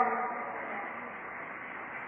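The tail of a man's spoken word dies away at the very start, then a steady background hiss of the recording.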